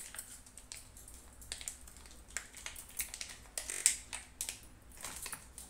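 Plastic packaging of a paneer block being peeled open by hand: scattered crinkling and crackling of the wrapper, with a louder rustle just before four seconds in.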